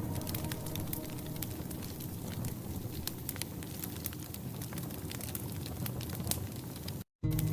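Fireplace crackling, with many sharp pops over a steady hiss; the sound cuts out abruptly for a moment near the end.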